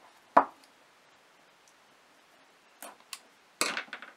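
Scissors and a pack of cards handled on a cutting mat: one sharp knock about half a second in, then a few light clicks, and a short run of sharp clicks near the end as the scissors cut into the pack's wrapping.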